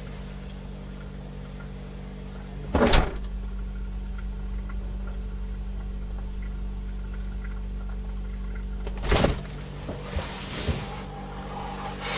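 A door bangs once, loudly, about three seconds in, over a steady low hum. A few more knocks and rattles follow near the end.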